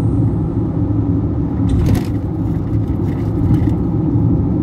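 Steady low rumble of a car driving, engine and road noise heard from inside the cabin, with a few brief clicks or rattles around the middle.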